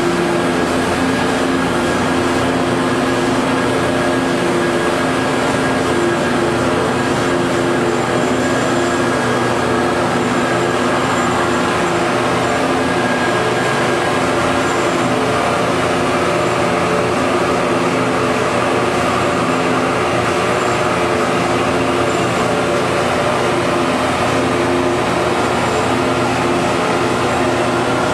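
Corrugated cardboard production line machinery running: a steady mechanical din from rollers and motors, with a constant low hum and a steady higher tone.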